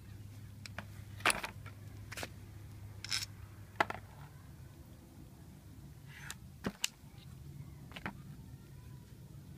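Scattered metal clicks and light scrapes as a screwdriver works at an alternator's voltage regulator and brush holder and the parts are handled and set down, about seven separate sounds over a low steady hum.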